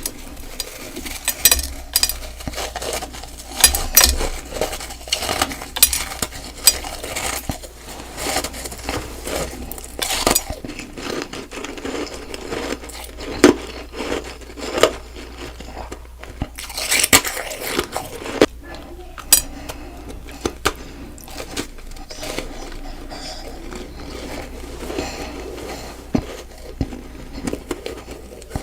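Close-miked biting and chewing of crunchy freezer-frost snowballs: irregular sharp crunches and crackles, some louder bites standing out.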